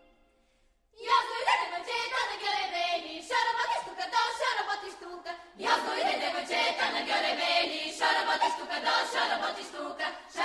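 Bulgarian women's folk choir singing a cappella. The singing starts about a second in, after a brief silence, and pauses briefly between phrases twice.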